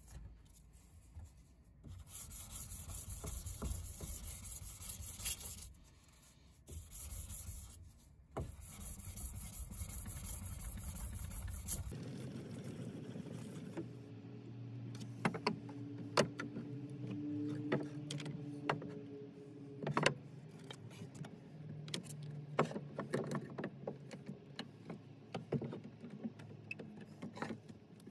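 Steady rasping of abrasive paper on a wooden block rubbed along a steel axe head, with two brief pauses; it stops suddenly about twelve seconds in. Then come scattered sharp clicks and knocks of bar clamps and wood being handled on the workbench.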